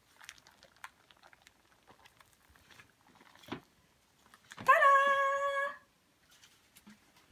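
Baking paper crinkling and rustling as it is peeled off a dome cake, in faint scattered crackles. About four and a half seconds in, a loud, high, held note lasts about a second.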